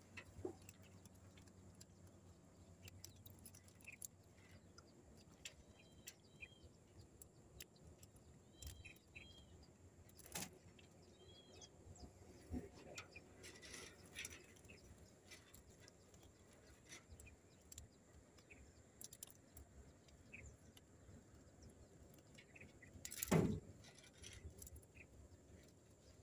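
Quiet handling of a fishing net and its catch: scattered soft clicks and rustles, with two louder knocks about ten and twenty-three seconds in. A bird chirps faintly a few times between about six and twelve seconds in.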